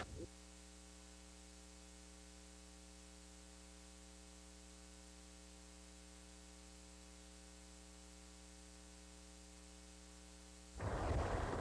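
Faint, steady electrical mains hum with a row of even overtones. Near the end a louder noise comes in, mostly low in pitch.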